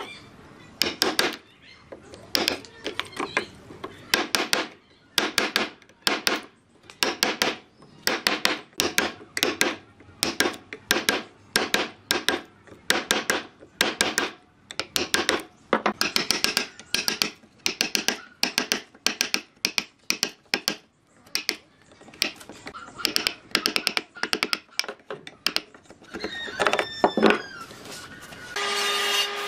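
Wood chisel being struck repeatedly to chop out a square mortise through a wooden board: sharp knocks in quick runs of several blows, with short pauses between runs. A steady machine hum starts just before the end.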